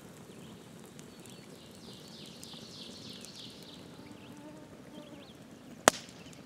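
Quiet outdoor ambience with a bird singing a rapid run of falling high notes about two to three and a half seconds in, and a single sharp click near the end.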